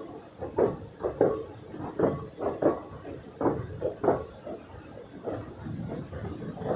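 Wheels of a slow-moving passenger train knocking over rail joints and points: a series of irregular clunks, about two a second, with a steadier rolling noise building near the end.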